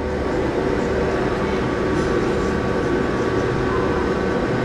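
Steady room hum and hiss of a running fan or air-conditioning unit, holding a couple of constant tones, with faint scratching of a marker on a whiteboard.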